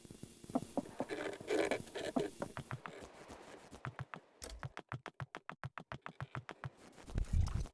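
Electronic music: scattered clicks and short synth notes, then a fast, even run of clicks, ending on a low thump.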